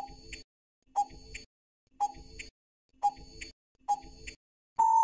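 Countdown timer sound effect: five short ticks, one a second, each opening with a brief blip, then a longer steady beep near the end as the count runs out.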